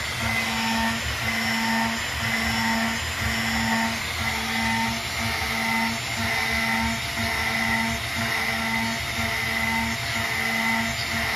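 Home CNC milling machine cutting metal: a steady motor whine and hiss, with a low hum that pulses on and off about once a second.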